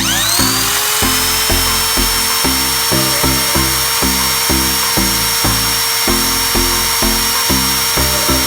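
A vacuum cleaner motor switching on: a rising whine that settles within about a second into a steady high whine with rushing air, over background music with a steady beat.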